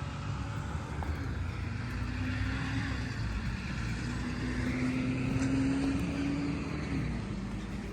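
Truck engine running steadily at idle: a low, even rumble with a faint held tone that rises slightly in the middle.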